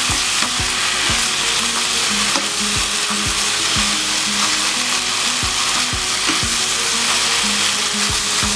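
Beef and vegetable stir-fry with tomato paste sizzling steadily in a hot pan, stirred through with repeated strokes about one or two a second.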